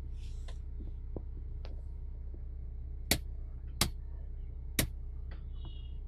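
Three sharp clicks of toggle switches on a custom ignition switch panel being flipped, the first two under a second apart and the third about a second later, over a steady low hum. A short high electronic tone sounds near the end.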